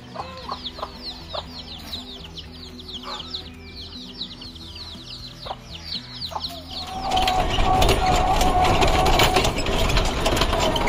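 Chicken chicks peeping in a rapid run of high, falling chirps, several a second. About seven seconds in, a much louder steady rushing noise with a hum takes over.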